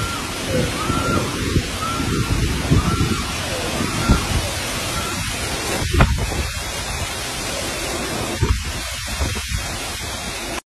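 Heavy rain and strong wind in a storm: a dense, steady rushing noise that swells slightly now and then, cutting off abruptly at the end.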